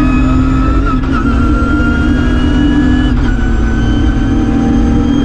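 BMW E36 M3 rally car's straight-six engine pulling hard under acceleration, heard from inside the cabin, its pitch rising slowly before a brief dip about three seconds in, then pulling on.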